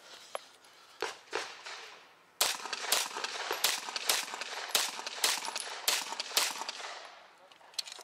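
Semi-automatic pistol firing a fast string of about eight shots, two to a target in four pairs roughly half a second apart, each report ringing briefly. Two fainter shots come about a second in, before the string.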